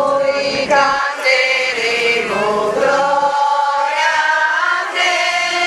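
Voices singing together, slowly, with long held notes that slide from one pitch to the next.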